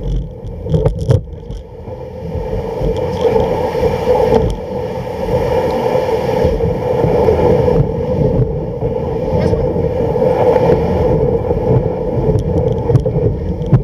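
Home-made kick sled's runners gliding over snow as the dogs pull it: a steady rushing scrape, with a few sharp knocks about a second in.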